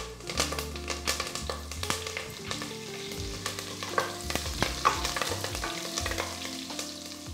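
Curry leaves, fennel and cumin sizzling and crackling in hot groundnut oil in a pressure cooker, with many sharp pops, while a wooden spatula stirs and scrapes the pan.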